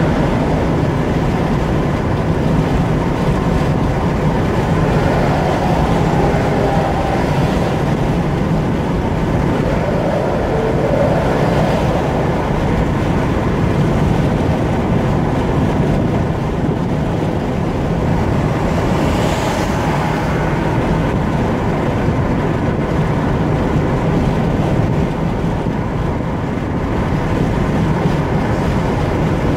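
Steady road and tyre noise of a car cruising at motorway speed, heard from inside the cabin, with a brief extra hiss about two-thirds of the way through.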